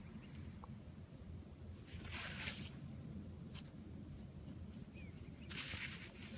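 Two short scraping rustles, about 2 seconds and 5½ seconds in, with a sharp click between them, over a steady low rumble.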